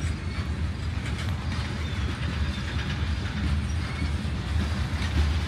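CSX freight train's covered hopper cars rolling past: a steady rumble of steel wheels on the rails, with a few faint clicks.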